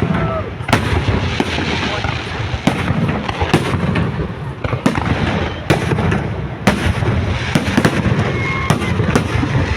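Fireworks display: sharp bangs of bursting shells every second or so over a continuous rumble of further bursts.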